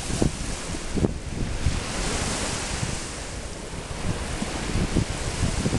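Small waves washing onto a sandy beach, the wash swelling about two seconds in, with wind buffeting the microphone.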